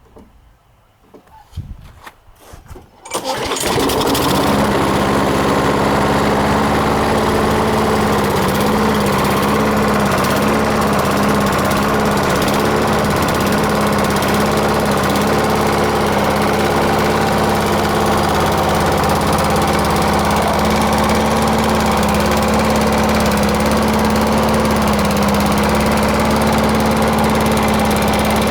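Briggs & Stratton 6.0 HP Quantum single-cylinder four-stroke engine on a Murray lawnmower, starting from cold at about -5 °C. A few faint rattles come first; it catches about three seconds in, then runs loud and steady, its speed wavering slightly at times.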